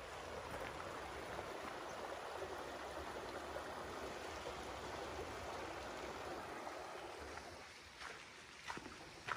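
Running water of a mountain stream, a steady rush that fades near the end, with a few footsteps on the trail in the last second or two.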